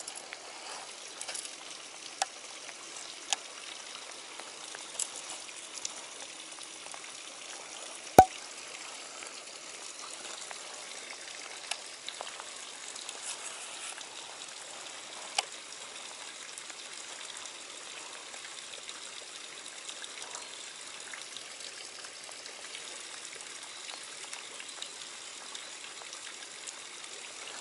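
Steady hiss of rain and flowing stream water, with scattered light ticks and one sharp click about eight seconds in.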